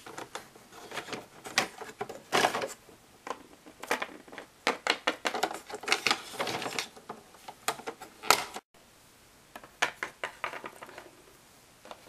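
Small plastic Littlest Pet Shop figures tapping and clicking against a hard floor as they are hopped along by hand: irregular clicks and knocks, with the sound cutting out briefly about two-thirds of the way through.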